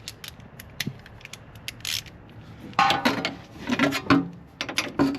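Hand ratchet clicking as a sway bar mounting bolt is run in. Scattered clicks at first, then a faster, louder run of ratcheting for the last couple of seconds.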